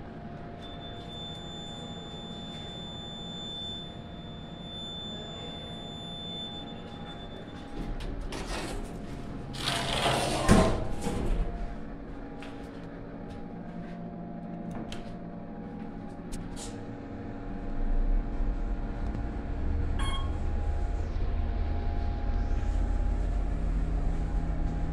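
Otis Series 1 traction elevator: a steady hum inside the car, a louder sliding clatter about eight to eleven seconds in, typical of the car doors closing, then from about eighteen seconds a steady low rumble as the car travels.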